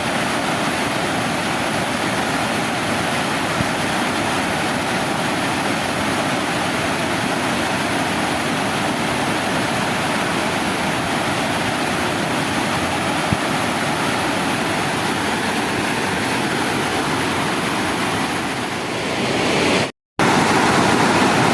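Water pouring over a dam's waterfall, a steady even rush of falling water. It cuts out for a moment near the end.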